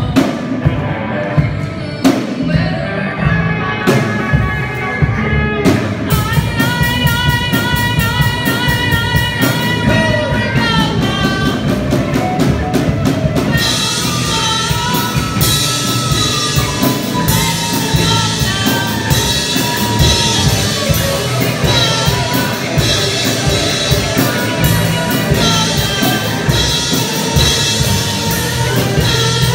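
Live rock band playing: a girl singing into a microphone over electric guitars and a drum kit. Mostly drum hits at first, with the singing coming in after about six seconds and the cymbals filling out the sound from about halfway.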